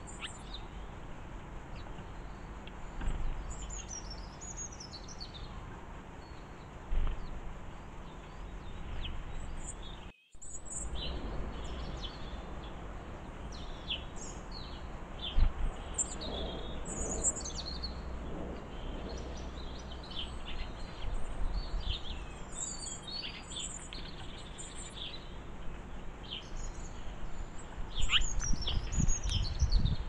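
Small garden songbirds chirping and twittering in quick, high calls, busier after the middle, over a steady low outdoor rumble.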